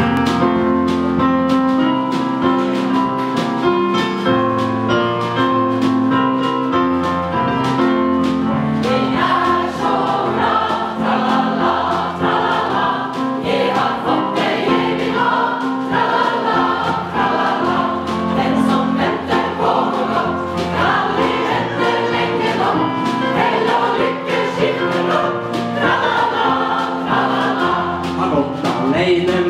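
Mixed choir singing in harmony with a small band, electric guitar among it: long held chords for about the first nine seconds, then a livelier passage with quicker-moving notes.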